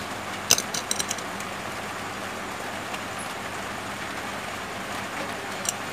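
A cluster of light clicks, with one more near the end, as a phone circuit board is handled and lifted out of a metal board holder, over a steady background hiss.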